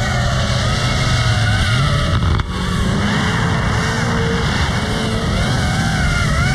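Drift cars running hard with tyres squealing: a steady engine note underneath and wavering, squealing pitches above it. The sound drops out briefly about two and a half seconds in.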